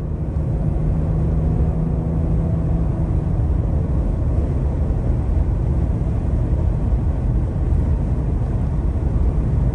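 2023 Ford Explorer ST driving at highway speed, heard from inside the cabin: a steady low road and engine rumble, with an engine tone that fades about three seconds in. No rattle comes through; the loose underbody felt panel that used to rattle at this speed has been bolted down with M6 nuts and washers.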